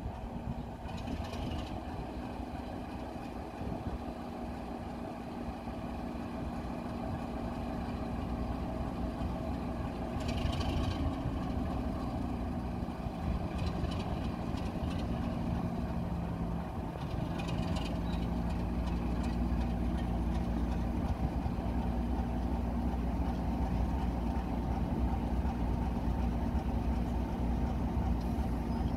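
Heritage diesel locomotive engine running steadily, growing gradually louder, with a few short hissy bursts along the way.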